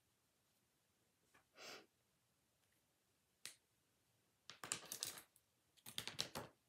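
Faint clicks and rattles of small craft supplies being handled on a work table, with a soft rustle early and the busiest bunches of clicks in the last two seconds.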